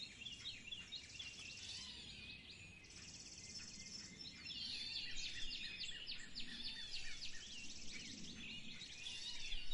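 Several songbirds calling and singing over one another in a spring chorus, a dense run of quick high chirps and short rising and falling notes. A higher, even buzzing trill comes and goes every couple of seconds behind them.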